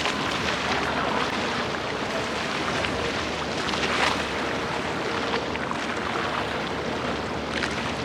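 Wind buffeting the microphone on a moving amphibious tour bus, over the steady running noise of the bus.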